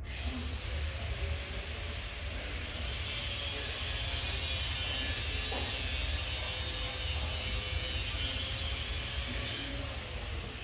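A steady hiss that starts suddenly, runs for about ten seconds and then fades, with a faint steady hum beneath it.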